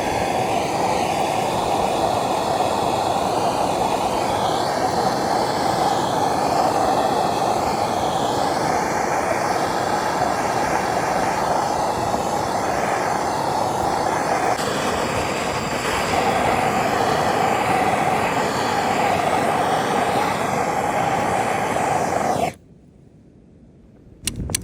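MAP gas torch flame roaring steadily as it heats the metal roof sheet and melts off snow and ice. It stops suddenly near the end.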